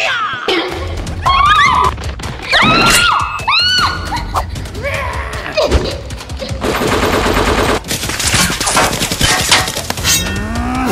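Action-movie gunfire sound effects dubbed over a toy-gun fight. Sharp shots and pitched zings rise and fall through the first half, then a rapid automatic burst lasts about a second a little past halfway, with more shots and impacts after it.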